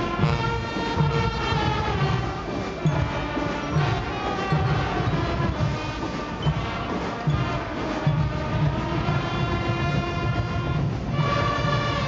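Massed Guggenmusik brass bands playing together: trumpets, trombones and sousaphones holding and shifting chords over a steady drum beat.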